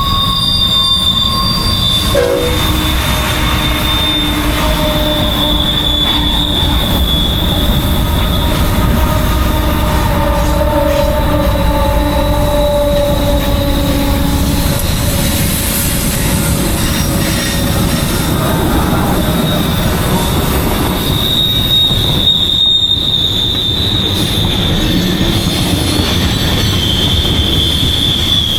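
Freight train rolling past, its steel wheels squealing against the rails with a steady high-pitched squeal over the heavy rumble of the cars; several lower squealing tones join in for about the first half.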